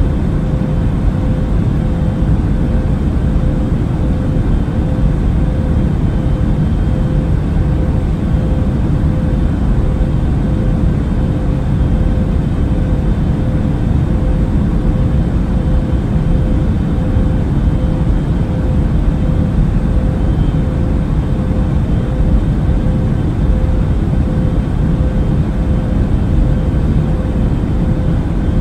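Steady airliner cabin noise: the low, even drone of engines and airflow through the fuselage, with a faint steady tone running through it.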